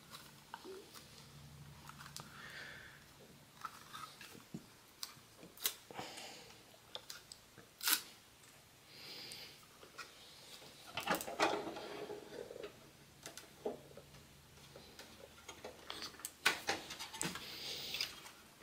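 Scattered clicks, taps and scrapes of plastic and sheet-metal parts being handled inside an open desktop PC case, as a 3D-printed drive holder is fitted into the drive bay. The clicks come irregularly, busier about eleven seconds in and again near the end.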